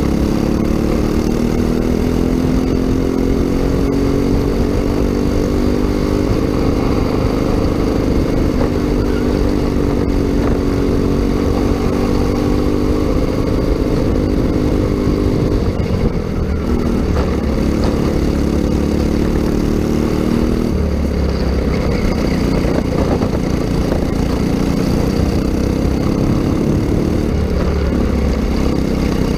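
Racing kart engine at high revs, recorded from on board the kart. Its pitch dips several times as the driver lifts off for corners and climbs again on the straights.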